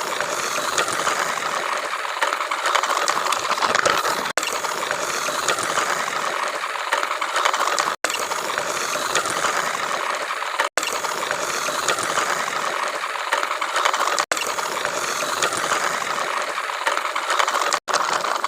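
Small DC toy motor whirring and rattling through its gears as it drives a home-made toy road roller, a steady clicking mechanical buzz with brief breaks every few seconds.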